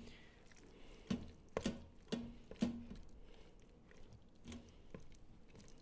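A spatula stirring shredded chicken and melted cheese in a stainless steel Instant Pot inner pot. About five faint, short squelches and taps against the pot are spread over a few seconds.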